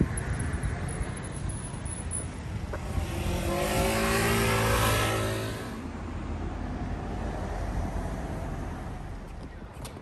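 Motor scooter's small engine passing close by, growing louder to a peak about four to five seconds in and then fading, over a steady low rumble of street noise.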